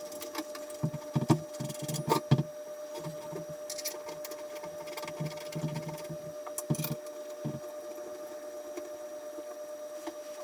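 A small electric machine hums at a steady pitch, with scattered knocks and clicks of handling, most of them in the first few seconds and again around the middle.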